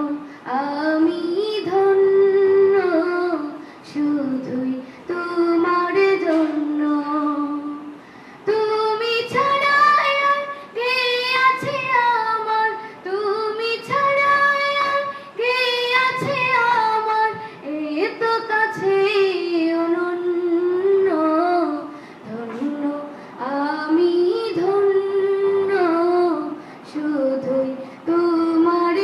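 A young woman singing an Islamic gazal (gojol) unaccompanied, in long held melodic phrases with short pauses for breath between them.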